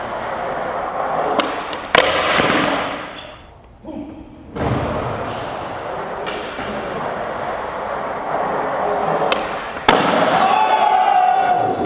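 Skateboard wheels rolling fast on pavement, with sharp clacks of the board hitting the ground, one about two seconds in and another near the end.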